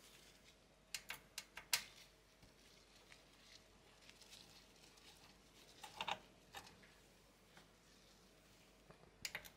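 Faint clicks and taps from hands handling a 3D printer's metal electronics box cover. A quick run of sharp clicks comes about a second in, a couple more around the middle, and another pair near the end.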